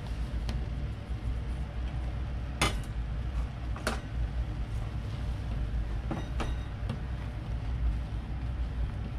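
A steady low rumble under a few sharp clicks and knocks of a metal bowl and a spatula against an aluminium saucepan, as flour is tipped into the pan and then stirred; the two loudest knocks come a little before the midpoint.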